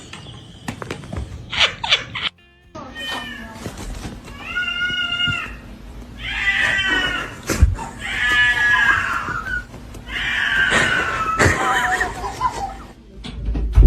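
A domestic cat meowing: a series of four or five long, drawn-out meows one after another, with a few short knocks before them.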